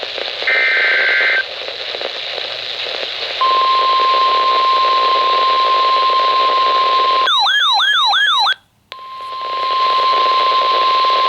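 NOAA Weather Radio broadcast over a steady static hiss. A short burst of SAME digital data tones is followed by the steady 1050 Hz warning alert tone that signals a warning is about to be read. About seven seconds in, a second or so of fast warbling siren-like tone and a brief drop-out interrupt it, then the steady tone resumes.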